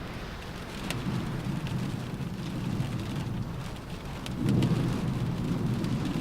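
Rain falling on a car roof, with scattered sharp drops tapping. A low rumble swells about a second in and again, louder, a little past four seconds in.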